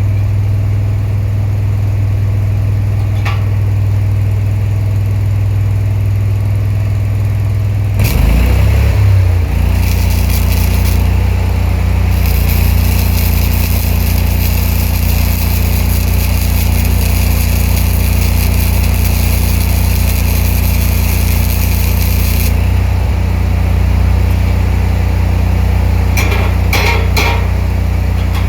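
Engine-driven welder-generator running steadily; about eight seconds in its engine note shifts, and a spool-gun MIG arc then crackles and hisses for about twelve seconds as a weld bead is run on steel, stopping suddenly. A few light clicks near the end.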